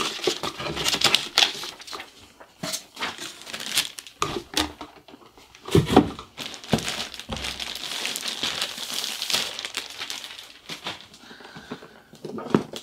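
Clear plastic bag crinkling and rustling as it is pulled off a hard-shell carrying case, in irregular handfuls, with a couple of dull knocks from the case being handled about six seconds in.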